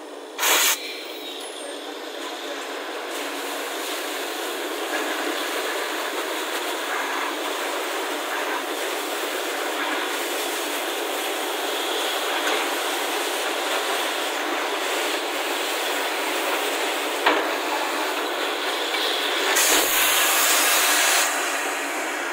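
Borewell drilling rig running, with compressed air blasting muddy water and rock cuttings out of the borehole around the drill pipe: a steady hissing rush that slowly grows louder. There is a short loud burst about half a second in, and a louder rush for a second or two near the end.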